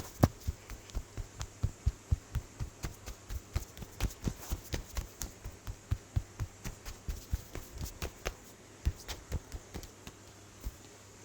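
Rapid, even tapping strikes of a percussive massage, about four or five a second, thinning out about eight seconds in and stopping near the end.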